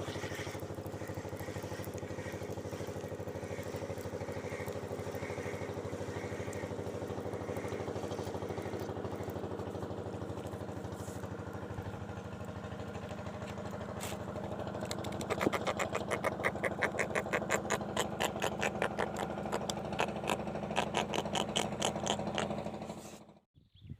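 A small engine running steadily. From about fifteen seconds in it turns to a fast, even pulsing, then cuts off abruptly just before the end.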